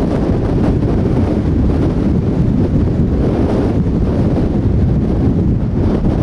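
Strong gusting wind buffeting the microphone: a loud, steady, low rumble that flutters unevenly.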